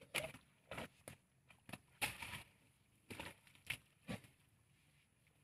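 Asian elephants, a calf and an adult, scuffing and digging in loose soil on a mud bank, with the adult flinging dirt over itself: a run of short, irregular scrapes and knocks.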